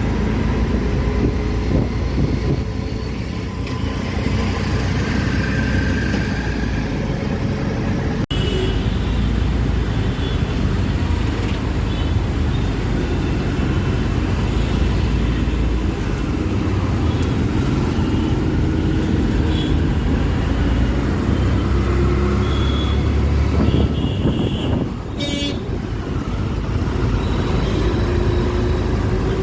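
Ride in an auto-rickshaw through city traffic: steady engine and road rumble, with vehicle horns tooting briefly several times.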